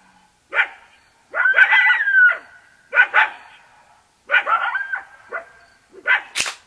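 A dog barking: a run of short barks, with one longer, wavering bark about two seconds in. A single sharp crack comes near the end.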